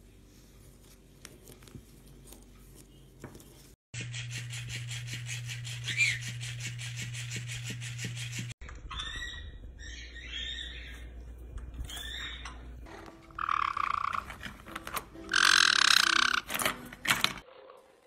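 Caique parrots calling: short, high chattering calls from a black-headed caique, then louder, longer squawks about three-quarters of the way in. Earlier, a steady hum with hiss runs for a few seconds.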